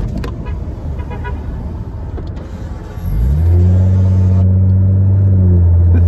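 Road noise inside a moving car. About three seconds in, a loud, deep, steady drone from another vehicle starts: it rises briefly in pitch, then holds.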